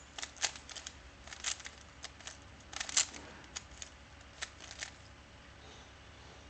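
A 3x3 Rubik's Cube being turned by hand: an irregular run of quick plastic clicks and clacks as the layers are twisted, stopping about five seconds in.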